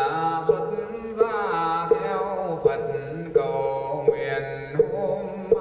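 A male voice chanting a Vietnamese Buddhist repentance verse in a slow sung melody. It is backed by a low sustained accompaniment and a steady knocking beat that falls about every 0.7 seconds.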